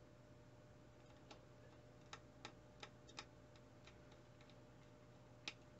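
Faint, irregular small clicks and taps from handling the small parts of a graphics card during a fan replacement, starting about a second in, over a low steady hum.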